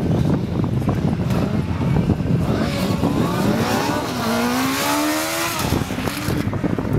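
Sport motorcycle engine being revved during a stunt run: about three seconds in it climbs in pitch, holds high, then cuts off abruptly a second and a half later, over wind rumbling on the microphone.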